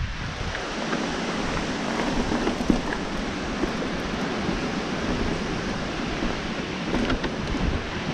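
Mountain bike rolling fast over rock and gravel: a steady rush of tyre noise and wind buffeting the camera's microphone, with a few sharp knocks and clicks as the bike hits the rock.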